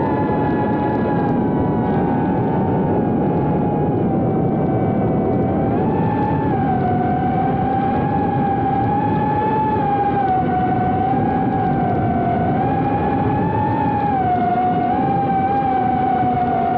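GEPRC Cinelog 30 FPV cinewhoop's brushless motors and propellers whining in flight, picked up by its onboard camera. A steady buzzing whine over a rushing hiss, its pitch wavering up and down with the throttle.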